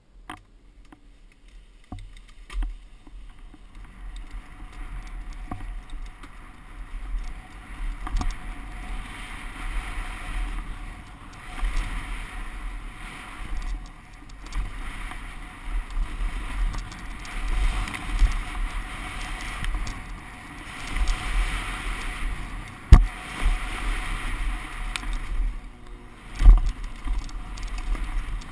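NS Bikes Snabb downhill mountain bike descending a wet dirt trail, recorded on a helmet camera: wind rushes over the helmet and the tyres roll over loose wet dirt and rocks, swelling and easing with speed. Irregular thumps come from bumps, with two hard knocks near the end.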